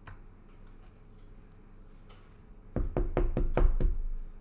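A quick run of about seven knocks in just over a second, starting a little under three seconds in.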